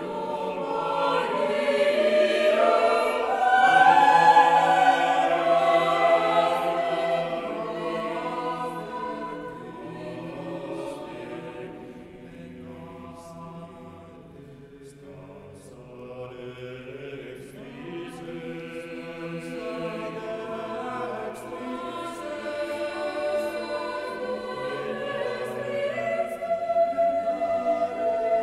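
Mixed choir singing an a cappella motet in contemporary polyphony: loud in the first several seconds, softening to a quiet passage midway, then building again toward the end.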